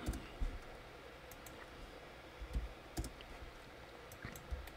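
Faint, scattered clicks of a computer mouse and keyboard, irregularly spaced, over low room hiss.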